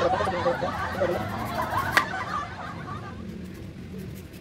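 A person snickering and chuckling under their breath, dying away after about three seconds, with one sharp click about two seconds in.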